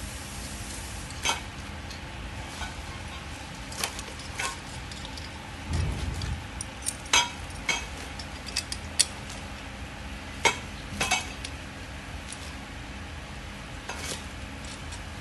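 Small metal parts clinking and tapping as a bolt and nut are fitted by hand into a steel bracket: scattered sharp clicks over a steady hiss, with a low dull thud about six seconds in.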